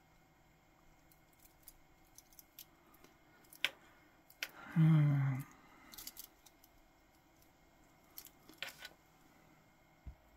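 Small scattered metallic clicks and ticks of a stainless steel watch bracelet's links being flexed and worked by hand to straighten a kink. About halfway through, a brief hum or grunt of voice.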